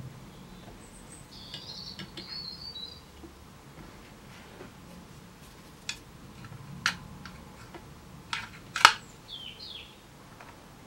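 A few sharp metal clicks and knocks as the aluminium toy steam engine is handled and a cylindrical burner is pushed in under its boiler, the loudest knock near the end. Small birds chirp faintly in the background about a second in and again near the end.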